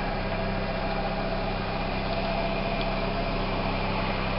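A steady engine hum, like a motor idling, with an even hiss over it.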